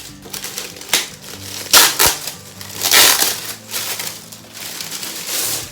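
Packaging being handled and unwrapped, with loud crinkling and crushing rustles in several bursts: about a second in, around two and three seconds, and again near the end.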